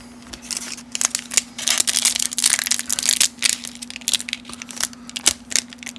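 Foil-wrapped baseball card pack being torn open by hand: a run of irregular crinkling and tearing of the wrapper from about half a second in. The pack's glued seal is giving trouble.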